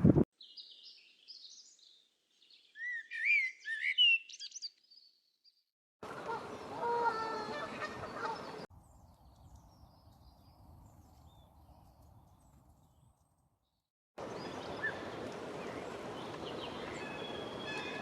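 Small songbird singing a run of quick, high twittering chirps for the first five seconds or so. Then come stretches of outdoor background noise with faint bird calls, which cut in and out abruptly.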